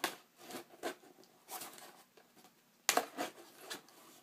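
Letter opener slicing and scraping along the edge of a cardboard package, with the cardboard rustling and crackling in irregular short bursts; the loudest crackles come about three seconds in.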